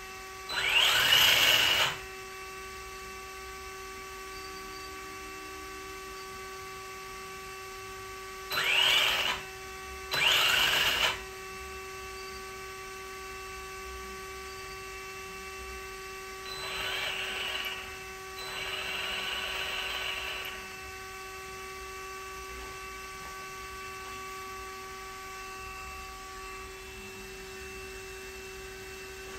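Electric motor of a radio-controlled car's TT-02 chassis spinning up in short bursts with its wheels off the ground. Three whirring bursts rise in pitch: one near the start, then two close together around nine and ten seconds in. Two softer, longer bursts follow around the middle, all over a steady electrical hum.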